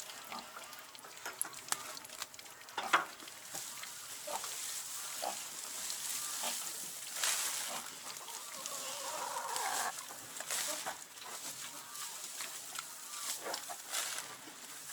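Farm animals in a barn, with rustling of straw or bedding and scattered knocks; a short animal call comes about two thirds of the way through.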